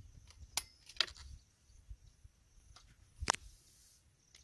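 A few sharp metallic clicks from a homemade single-shot break-action 12-gauge shotgun, the loudest about three seconds in: the hammer falls on the shell without a shot, a misfire from a weak primer strike.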